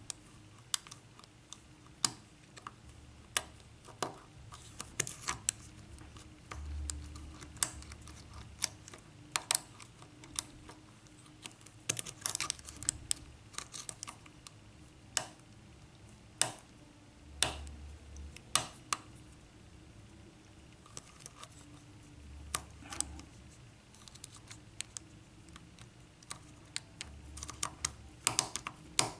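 Irregular small metallic clicks and ticks of a hook pick and tension wrench working the pins of an Assa pin-tumbler lock cylinder during single-pin picking, some of them coming in quick little clusters.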